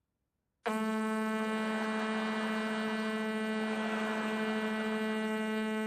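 A loud, steady buzzing tone at one unchanging pitch. It starts abruptly about half a second in, after a moment of silence.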